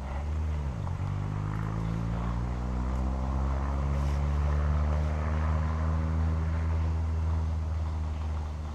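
An engine drone: a steady pitched hum with strong low tones, its pitch dipping and recovering within the first second, then holding steady.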